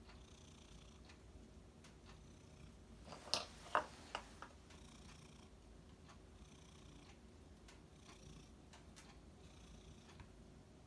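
Domestic cat purring softly, its purr swelling and easing with each breath about every second and a half. A few sharp clicks come close together about three to four seconds in.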